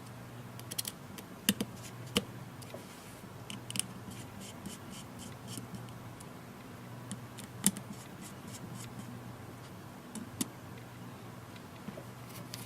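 Scattered light clicks and taps of a small screwdriver and small parts being handled while a tablet is reassembled, over a faint steady low hum.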